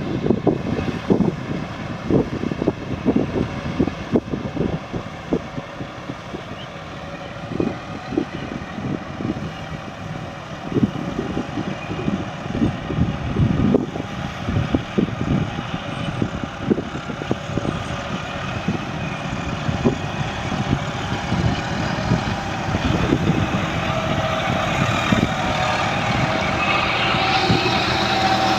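John Deere tractor's diesel engine running under load while ploughing in mud, with uneven low thuds throughout. It grows louder over the last several seconds.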